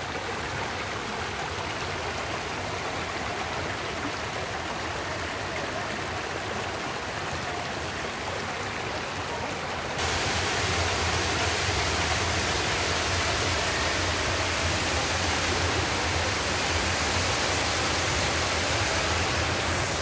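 Water running over stones in a small garden cascade, a steady rushing; about halfway through it changes suddenly to the louder, fuller rush of a rock waterfall.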